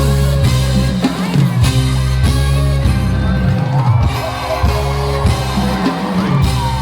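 Loud live music with a heavy bass line and a steady drum beat, with some singing over it.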